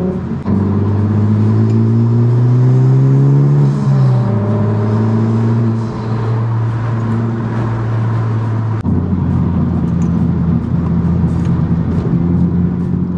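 Honda Civic Type R's turbocharged 2.0-litre four-cylinder heard from inside the cabin, revving up through a gear for about three seconds before an upshift drops the pitch. It then runs at steady revs, and the note changes again about nine seconds in.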